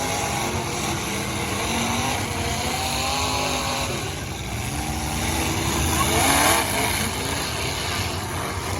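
Several demolition derby cars' engines revving up and down at once, their pitches rising and falling over each other, with a louder burst of noise about six and a half seconds in.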